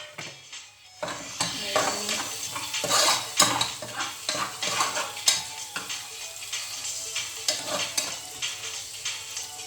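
Garlic and green chili sizzling as they fry in hot oil in a pan, stirred with a utensil that scrapes and clicks against the pan. The frying starts about a second in.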